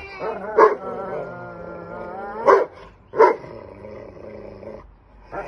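English mastiff and Belgian malinois barking and vocalising while playing tug of war with a rope toy, with three short loud barks: one about half a second in and two close together about halfway through. It goes quieter near the end.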